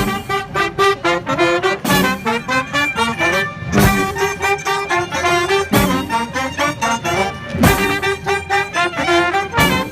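Street marching band playing brass music, with a melody of horns over a steady beat and a loud drum hit about every two seconds.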